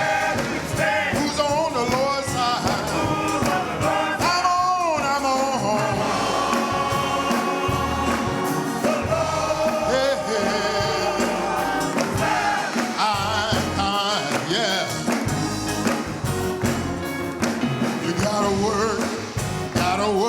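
Gospel music with singing, a lead vocal over organ or keyboard, bass and drums, with a choir joining in.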